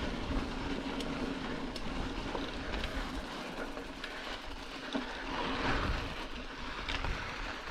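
Mountain bike riding a dirt trail: wind buffeting the microphone and tyre rumble, with scattered light rattles from the bike. A low steady hum fades out about three seconds in.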